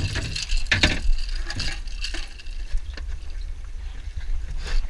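A freshly caught bonito knocking and flapping inside a boat's plastic fish box, a few separate thumps with a wet, splashy sound, over a steady low rumble.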